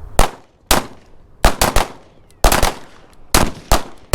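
Rapid gunshots from a firearm, about ten in all, fired in quick pairs and threes with short gaps between the groups.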